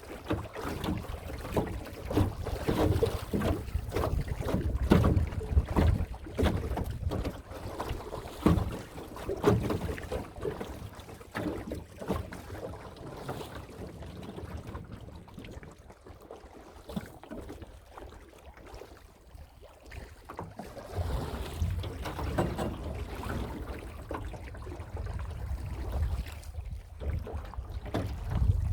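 Wind buffeting the microphone of a camera mounted on a small boat, with irregular knocks and water sounds from the boat; it eases off for a few seconds past the middle.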